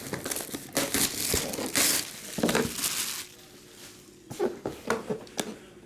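Packaging being unwrapped by hand: plastic wrap and cardboard crinkling and rustling in irregular bursts with small clicks, quieter for about a second past the middle.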